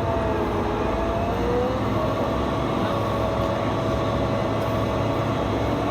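Large diesel farm machine running steadily under load during harvest, a dense engine drone with a steady mechanical whine over it.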